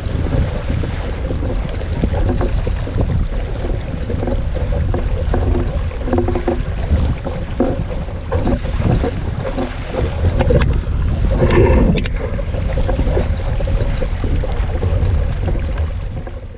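Heavy wind buffeting the microphone over the rush of water around a small boat, with a brief clatter of knocks about two-thirds through; the sound fades out near the end.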